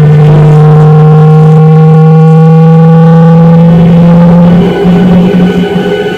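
Jet engines of a Boeing 737-800 heard from inside the cabin while taxiing, a loud steady hum whose pitch rises slowly. About four and a half seconds in it changes to a different, rougher steady tone.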